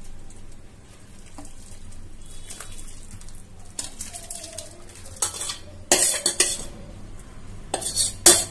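Lemon-curdled milk being poured from a stainless steel saucepan into a cloth-lined strainer. From about four seconds in, clusters of metal scraping and clinking against the pan, loudest near the end.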